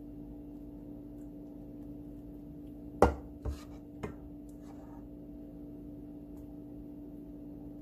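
Plastic ladle knocking against kitchenware while scooping and spooning thick rabri: one sharp knock about three seconds in, then two lighter ones. A steady low hum runs underneath.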